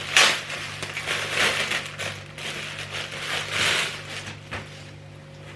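Irregular crinkling and rustling of packaging as a small pouch is handled and taken out, with a sharper crackle about a quarter of a second in.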